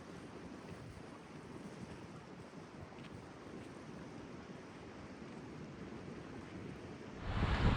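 Wind blowing in a steady rush, then a gust buffeting the microphone with a low rumble near the end.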